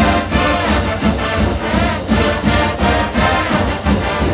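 Brass band music with a steady drum beat, about three beats a second.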